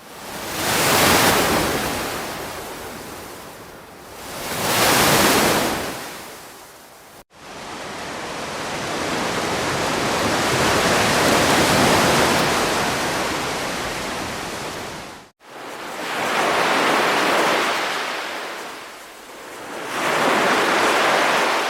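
Ocean waves breaking and washing in, each surge swelling and then falling away every few seconds, with one longer steady rush in the middle. The sound cuts out for an instant twice.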